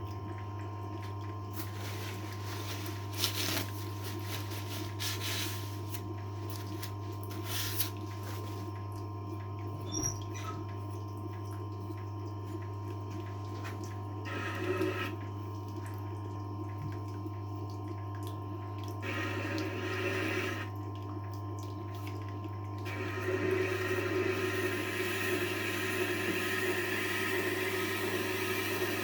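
Tormek T-8 wet sharpening machine running with a steady motor hum while a kitchen knife is ground on its water-cooled stone. The wet grinding hiss comes and goes as the blade is worked, and is loudest and most continuous near the end.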